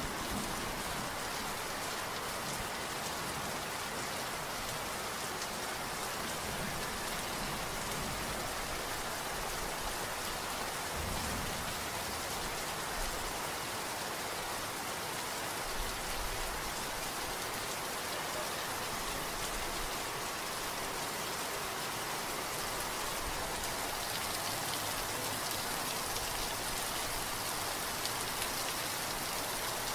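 Steady rain falling on paved paths, lawns and hedges, an even hiss with no break.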